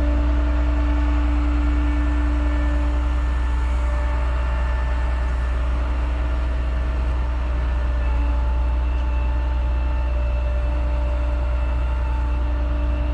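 Bucket truck's engine running at a raised, steady speed with a steady hydraulic whine as the aerial boom lifts the bucket.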